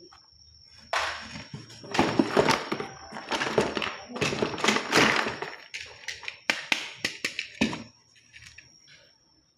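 Rustling and clattering of things being handled, with many sharp taps and knocks, dying down about eight seconds in. A faint steady high whine runs underneath.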